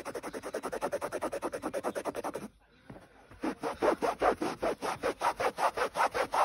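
A cloth scrubbed rapidly back and forth over woven sofa upholstery to lift a biro ink stain, in quick even strokes about eight a second. The rubbing stops briefly partway through, then starts again.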